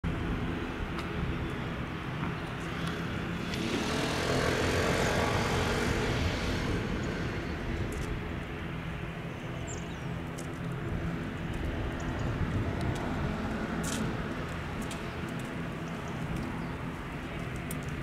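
Steady outdoor traffic noise, with a road vehicle passing about four seconds in, louder for a few seconds and falling in pitch as it goes by.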